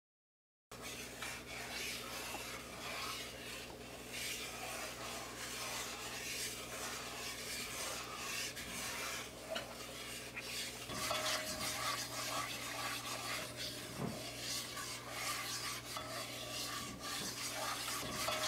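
Wooden spoon stirring a light roux in an aluminum pot, a soft continuous scraping against the pot's bottom with an occasional light knock, starting under a second in.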